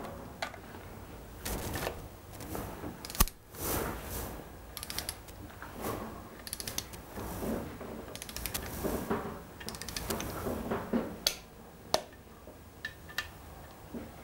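3/8-drive torque wrench ratcheting the oil pump retaining bolts down on an Austin Midget A-series engine block, in repeated bursts of pawl clicking. A few sharp single clicks stand out, the loudest about three seconds in, as the bolts are brought to 12 lb ft.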